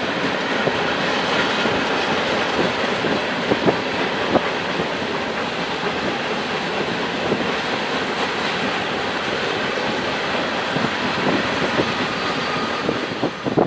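Freight train of hopper cars rolling past on the main line: a steady rumble of wheels on rail, with occasional sharp clicks as wheels cross rail joints.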